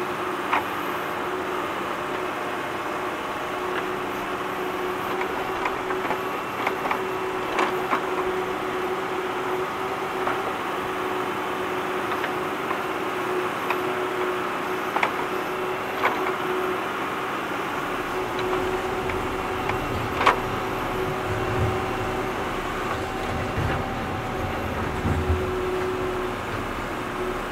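Tractor engine running steadily while digging, with occasional sharp knocks; a deeper low rumble joins about two-thirds of the way through.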